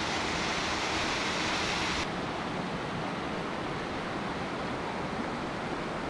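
Steady rush of a mountain stream's water spilling over rocks in a small cascade. About two seconds in it drops a little and turns duller as the scene changes.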